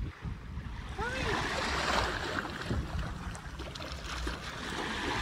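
Shallow sea water washing and lapping on a sandy shore, swelling about a second in, with wind rumbling on the microphone. About a second in there is a brief pitched vocal sound that rises and falls.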